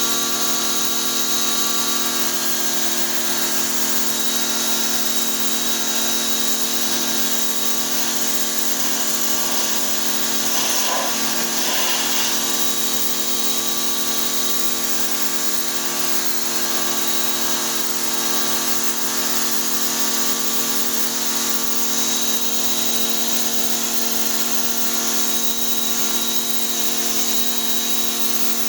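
Pressure washer running steadily: an even motor and pump hum under the hiss of the water spray.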